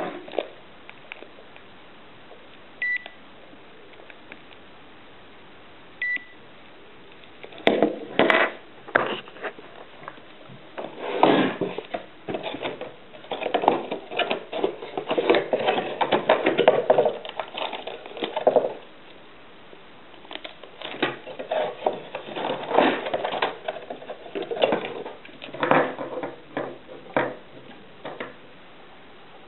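Two short electronic beeps, about three seconds apart, from the StarLine A61 car alarm kit. Then bursts of clicking, rattling and rustling as the kit's plastic parts and packaging are handled.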